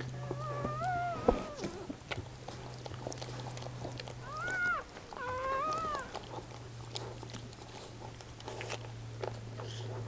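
Newborn Swiss mountain dog puppy squealing: a wavering high cry in the first couple of seconds, then two short arched cries about four to six seconds in. Scattered small clicks and a steady low hum run underneath.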